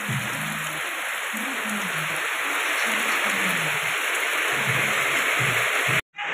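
Heavy tropical rain pouring onto a flooded concrete yard and tiled roofs: a dense, steady hiss, with faint low tones beneath it. The sound cuts out completely for a moment near the end.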